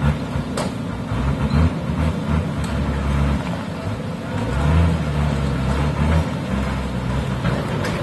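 Heavy diesel engine running under load, its note rising and falling, with a few sharp knocks.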